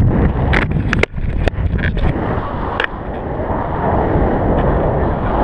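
Wind rushing and buffeting over an action camera's microphone in paraglider flight, with several sharp knocks and clicks in the first three seconds. The rushing swells about three and a half seconds in.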